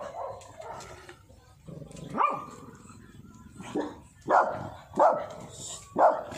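Small dog barking in short, sharp barks, about five of them from about two seconds in, the loudest coming about a second apart.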